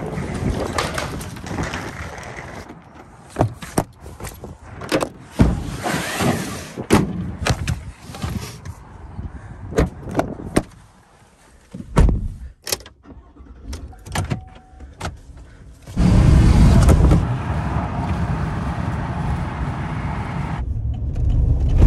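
A wheeled suitcase rolls over a tiled floor, followed by a series of sharp clicks and thuds like car doors opening and shutting. About two-thirds of the way through, the steady low rumble of a moving car takes over, with road and engine noise heard from inside the cabin.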